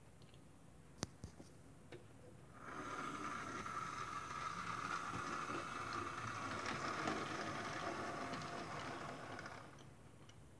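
Model Class 08 diesel shunter running along the layout track: the noise of its small electric motor and wheels starts about two and a half seconds in, runs steadily and stops near the end. A single sharp click about a second in.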